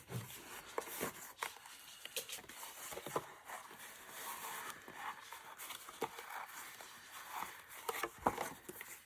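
Card and paper handled and pressed down by hand: soft rustling with scattered light taps and knocks.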